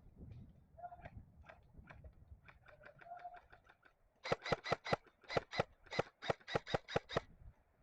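A bird calling in a rapid run of about fourteen short, harsh notes, four or five a second, after a few softer scattered notes.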